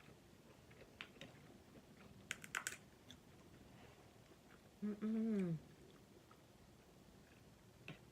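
Close-miked eating sounds of crab legs in butter sauce: a few sharp, wet clicks and crackles of chewing, bunched about two and a half seconds in. About five seconds in comes a short hummed "mmm" that falls in pitch at the end.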